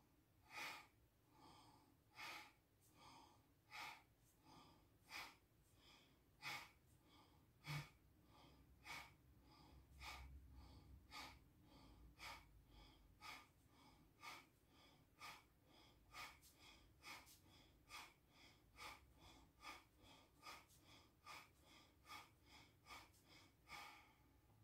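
A woman's forceful, rhythmic breaths through the nose in bhastrika (bellows breath), faint. The strokes come about one every second and a half at first and quicken to about two a second.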